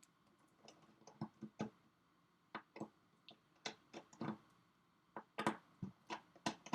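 Small, irregular clicks and taps of a precision screwdriver and tiny screws as T8 screws are worked out of a laptop display hinge.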